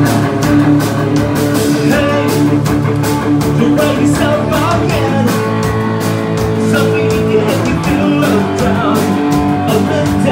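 Live rock band played loud: electric guitar over a steady drum-kit beat, with singers' voices.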